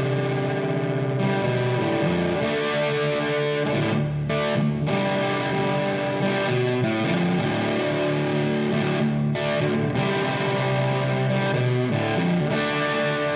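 Rock intro theme music led by a distorted electric guitar, playing steadily throughout.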